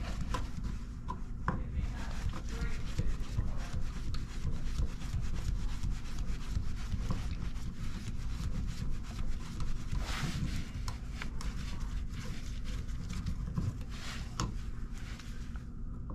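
An insulated screwdriver turning the screws of a wall outlet, heard as continuous scratchy rubbing and scraping with fine clicks, louder in places.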